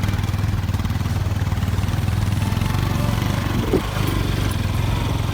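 A motor vehicle engine running steadily at low speed, with an even, unchanging hum.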